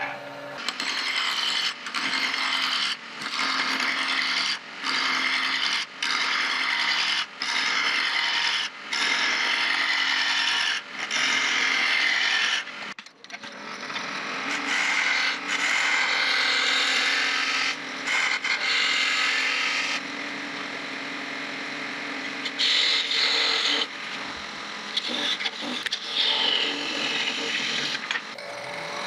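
Wood lathe running while a turning tool cuts a small piece of wood, a loud scraping hiss over a low motor hum. For the first half it breaks off briefly about once a second, then runs on more steadily.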